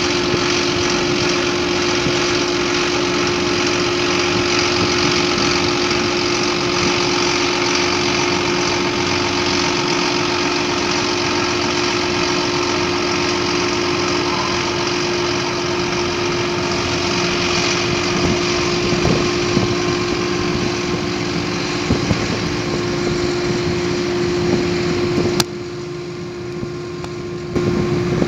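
Machinery of a crane working a clamshell grab bucket, running steadily with a constant hum. Near the end the sound drops off suddenly for about two seconds, then returns.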